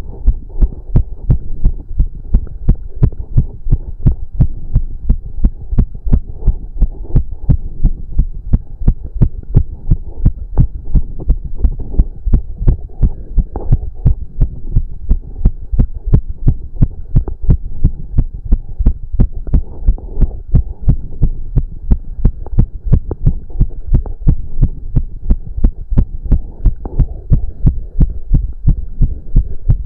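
A man's heart beating fast and strongly, raised by cardio exercise: an even, quick rhythm of low thumps. A faint steady hum sits underneath.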